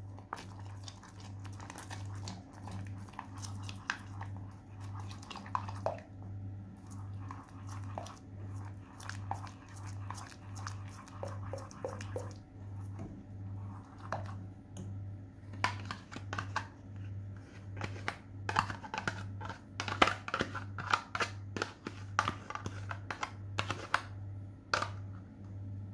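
Wooden spoon stirring thick caramel sauce in a stainless steel saucepan, scraping and knocking against the pan's sides and bottom. It is stirred fast because the caramel catches and sets. A low hum pulses a little over once a second underneath.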